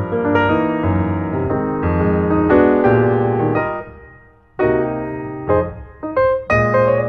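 Background piano music: a run of struck notes and chords that fades away about four seconds in, then a new phrase starts sharply.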